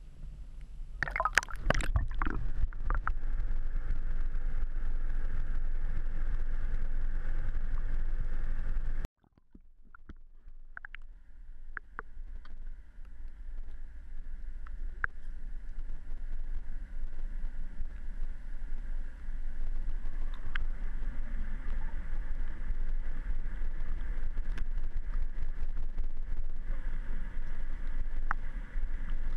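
Sound picked up by a camera going underwater: splashing as it breaks the surface about a second in, then a steady, muffled rushing drone of water around the housing. About nine seconds in the sound cuts out abruptly and builds back to a similar steady underwater drone.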